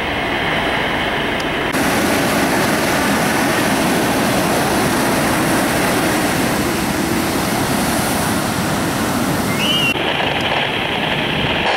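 Ocean surf breaking and washing up the beach, a steady rushing that turns brighter about two seconds in and duller again near the end.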